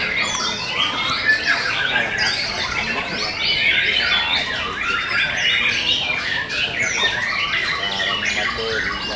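Many caged canaries singing at once in competition, a dense chorus of overlapping trills, warbles and rising and falling notes with no break.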